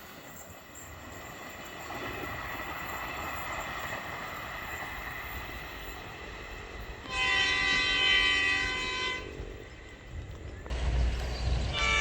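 Locomotive air horn, the 'hongeng' horn, sounding a blast of several tones at once for about two seconds, starting about seven seconds in. A low engine rumble swells near the end and a second horn blast begins. Before the horn there is only a low, steady train noise.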